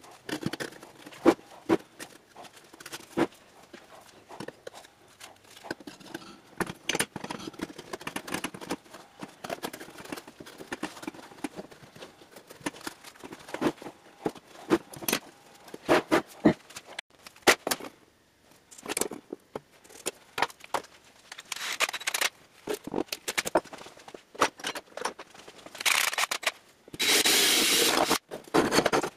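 Handling noise of stiff insulation board being fitted into a steel ammo can: scattered knocks, taps and scrapes. Near the end a handheld power drill bores continuously into the can's steel lid.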